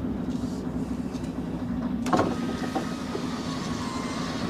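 Lorry engine running steadily while the rig with its trailer turns a tight corner at low speed. There is a sharp knock about two seconds in, followed by a faint thin squeal.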